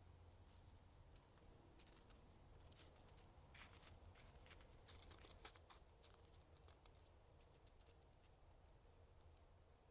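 Faint crunching and crackling of white-tailed deer footsteps in snow and dry leaf litter, a scatter of soft clicks densest around the middle, over a faint steady low hum.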